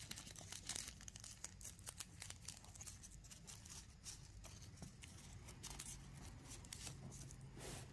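Faint crinkling and crackling of a small packet of replacement drone propellers being handled and opened, with a louder crinkle near the end.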